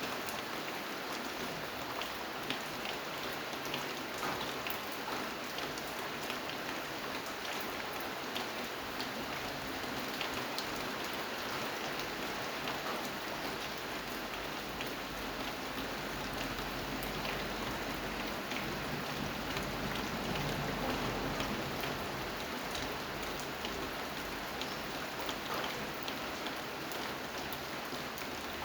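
Steady rain falling, with many separate drops ticking against a surface over an even hiss.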